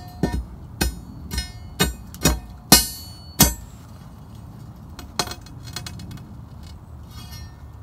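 Metal striking metal in a steady series, about two blows a second, each with a short ringing note; the blows stop about three and a half seconds in, and a few lighter clicks follow.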